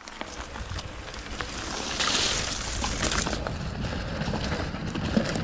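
Canyon Spectral:ON 6.0 electric mountain bike riding fast along a dirt singletrack: wind buffeting the GoPro Hero7 microphone over the tyres rolling on dirt and twigs, with small rattles and clicks from the bike. The rumble builds as the speed rises, with a brief hissing rush about two seconds in.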